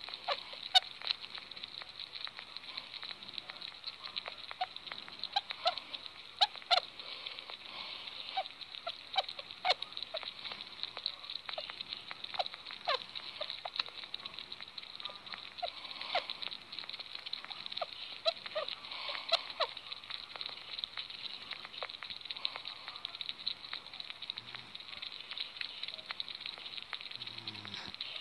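Two sugar gliders making soft, irregular chirping clicks, the contented sound of happy, relaxed gliders. A steady hiss runs underneath.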